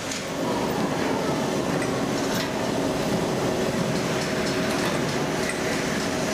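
Foundry sand dispenser running and pouring resin-bonded molding sand into a flask: a steady rushing hiss with a faint hum from the machine.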